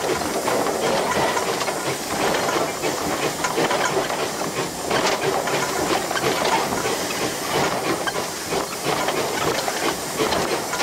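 Steady steam hissing with irregular mechanical clatter from a 1915 Baldwin 0-6-2T tank steam locomotive, heard inside its cab.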